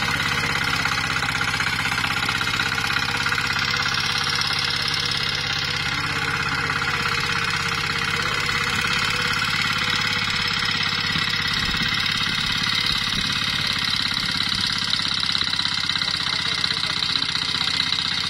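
Mini power tiller's small engine running steadily while the machine tills dry soil.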